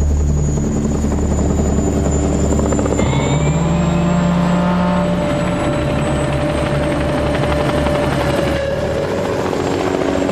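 Helicopter in flight: a loud, steady low rotor thrum with a pulsing beat, and a turbine whine that rises about three seconds in.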